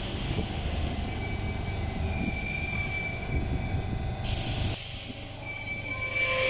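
Paris Métro MP14 rubber-tyred train running past at close range as it leaves the platform, a steady rumble with several thin, high squealing tones over it. The sound changes abruptly about four to five seconds in.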